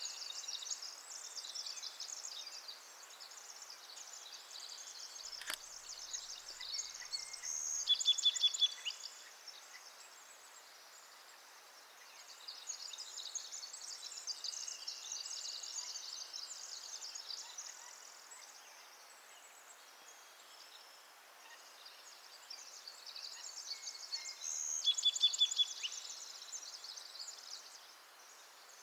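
Outdoor wildlife ambience: high-pitched buzzing, trilling calls that swell and fade twice, each peaking in a loud rapid trill. One sharp click comes about five seconds in.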